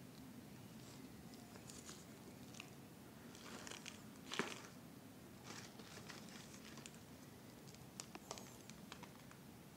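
Faint rustling, crinkling and small clicks of plant cuttings and a plastic bottle being handled, with one sharper click about four and a half seconds in.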